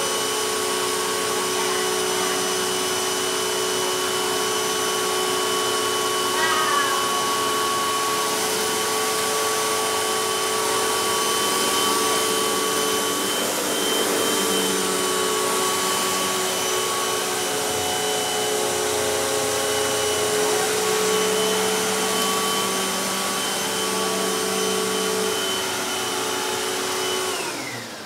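Hoover WindTunnel Max upright vacuum cleaner running steadily with a whine as it is pushed over a carpet strewn with shreds. Near the end it is switched off and the motor winds down, its pitch falling.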